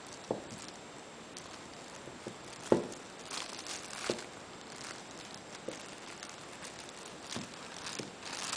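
Handling noises from unboxing a model airliner: a handful of light knocks, the loudest a little under three seconds in, with short spells of rustling packaging between them.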